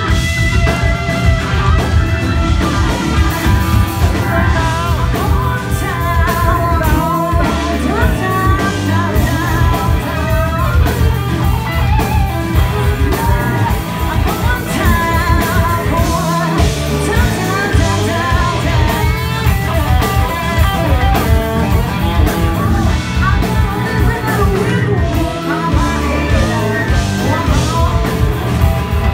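Live blues-rock band playing loud: electric guitar, electric bass and a drum kit, with a woman singing at times.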